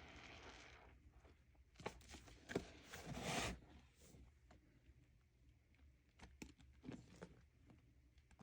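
Soapy, wet sponge squeezed by hand, crackling and squelching in short bursts; the loudest squeeze comes about three seconds in, followed by faint scattered crackles.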